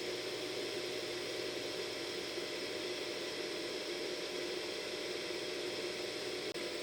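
Hair dryer running steadily: a constant blowing rush with a steady motor whir.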